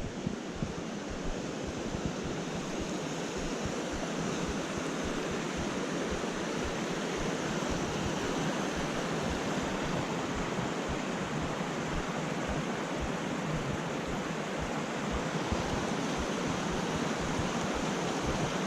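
Rushing creek water: a steady, dense hiss that grows slightly louder over the first few seconds, with a low, choppy rumble underneath.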